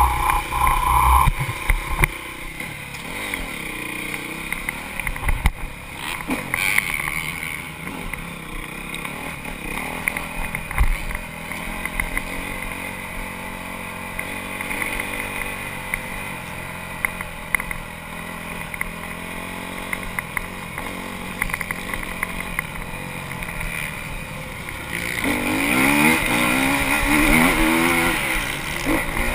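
Honda CRF250 four-stroke single-cylinder motocross engine, heard through a helmet-mounted camera, running at low revs with frequent knocks and rattles. About 25 seconds in it revs up harder, louder and rising in pitch.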